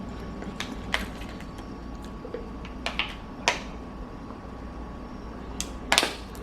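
Close-up mouth sounds of someone chewing a fried chicken sandwich: scattered wet clicks and smacks over a steady low hum, the strongest pair near the end.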